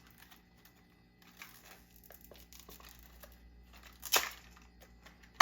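Plastic packaging crinkling and being torn open by hand, with faint rustles and small clicks and a short loud rip about four seconds in.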